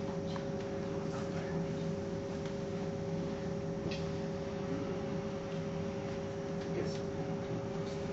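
A steady hum of two held tones over faint room noise, with a few faint clicks.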